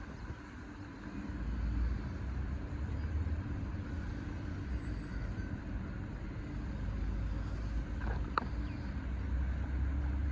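A car's engine running at low speed with a steady low rumble as it is driven slowly through a manoeuvre. A couple of brief clicks are heard about eight seconds in.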